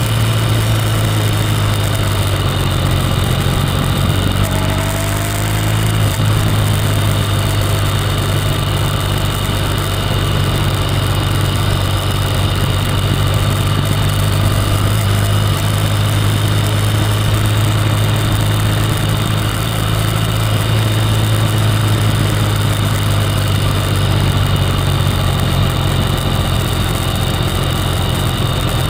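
Motorcycle engine running steadily on the move, with wind and road noise on the camera. About five seconds in, the engine note briefly rises and shifts, as in a gear change, then settles again.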